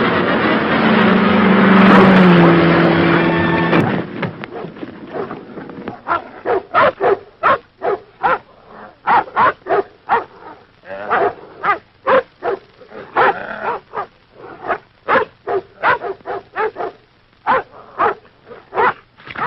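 A few seconds of orchestral film score that stops about four seconds in, followed by a dog barking rapidly and repeatedly at a man who has climbed a tree.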